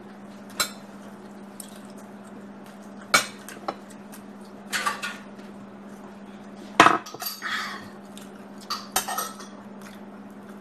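Metal spoons clinking and scraping against plates of fried rice: scattered sharp clinks and short scrapes, the loudest about seven seconds in, over a steady low hum.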